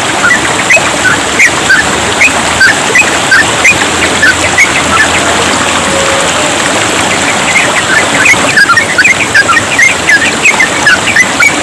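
Yellow-vented bulbuls calling in quick, short chattering notes over the steady hiss of trickling water. The calls thin out in the middle and come thick again from about eight seconds in.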